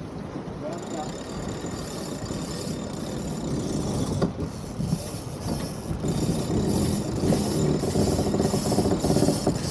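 Wind and water rushing along the hull of a heeling racing keelboat under sail, growing louder, with a rapid mechanical ratcheting over the last few seconds like a sheet winch being worked.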